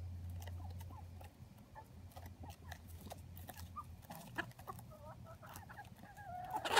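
Chickens giving soft clucks and short chirping calls while pecking at a head of cauliflower, with scattered light taps. A louder call and a sharp knock come right at the end.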